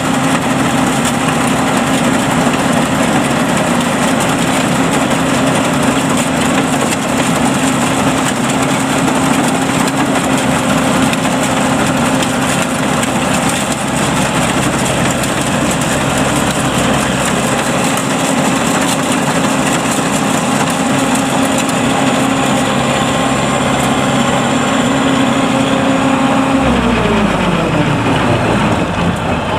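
Engine of a homemade rice combine harvester running loud and steady at working speed. Near the end its pitch falls smoothly as it is throttled down.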